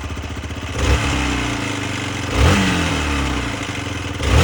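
Hero XPulse single-cylinder motorcycle engine idling, blipped three times on the throttle, with the abnormal rattling noise its owner cannot trace. He suspects either the exhaust header, where he has just replaced the gasket, or the clutch pressure plate.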